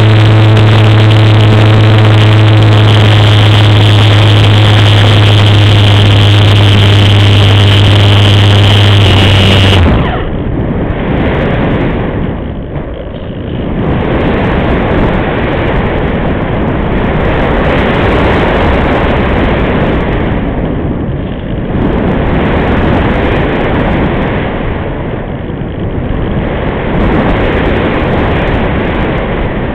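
Multiplex Easy Glider's electric motor and nose propeller running with a steady drone, heard through the model's onboard camera microphone. The motor is cut about ten seconds in, and after that a loud wind rush over the airframe and microphone swells and fades as the model glides.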